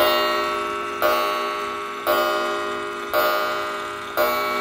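Japanese 'Hearth' long-drop wall clock striking the hour: its metal hammer hits the coiled wire gong metal on metal. Five strokes about a second apart, each ringing and fading into the next.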